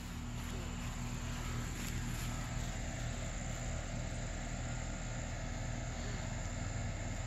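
Steady outdoor background: a low hum under an even faint hiss, with no distinct event standing out.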